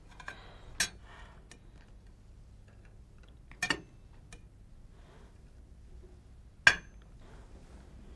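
Cutlery clinking on a plate as someone eats: three sharp clinks about three seconds apart, the last one the loudest, with a few small ticks between, over a faint low hum.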